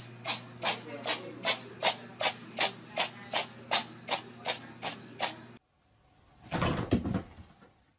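A steady run of sharp clicks, a little under three a second, over a low hum, stopping abruptly after about five and a half seconds; a short hissing burst follows near the end.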